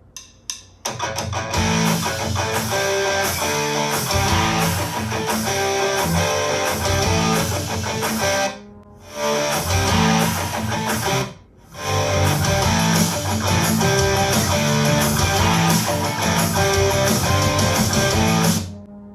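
Guitar-driven rock music played back through a home speaker for a sound test. There are two short breaks in the track, about nine and eleven and a half seconds in, and it stops just before the end.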